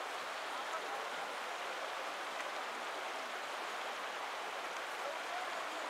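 River water running steadily over a gravel and stone bed, an even rushing noise.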